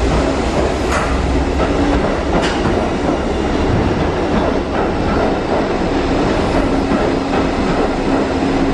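A Bombardier R62A subway train rolling along the platform track, wheels clacking over rail joints with loud, steady running noise. A steady low hum joins in about two-thirds of the way through.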